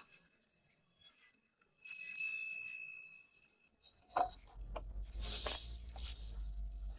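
A bright bell-like ding about two seconds in, ringing and fading over a second or so. Then frozen berries drop into an enamel saucepan with a few sharp clicks, followed by a loud hiss as sugar is poured over them, over a low steady hum.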